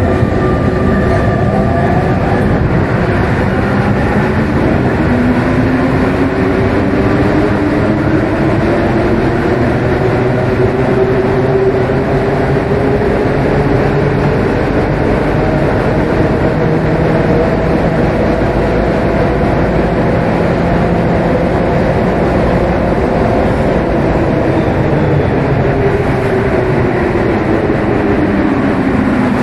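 Rubber-tyred metro train running through a tunnel, heard from inside the front of the train. The running noise is steady, with a motor whine that climbs in pitch over the first dozen seconds as the train speeds up and drops again near the end as it slows.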